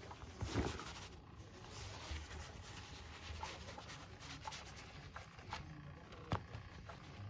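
Faint scratching and rustling from a kitten pawing and biting at a toy wand on a tatami mat, with scattered small clicks and a couple of sharper knocks, one about half a second in and one near the end.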